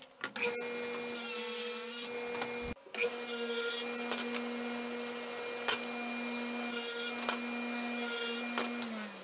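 Ridgid table saw running, its blade cutting small pieces of plywood. The steady motor hum drops in pitch near the end as the saw is switched off and coasts down.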